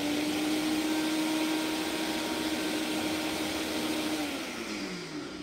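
Personal blender motor running at a steady pitch, churning a very thick frozen-mango smoothie; a little over four seconds in the pitch falls and the motor winds down as it is switched off.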